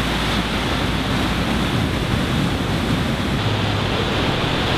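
Steady rush of surf on a sandy beach, with wind on the microphone.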